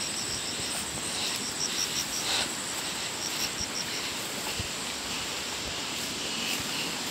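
Insects chirping in the forest: a rapid, even series of short high chirps that stops about four seconds in, over a steady background hiss.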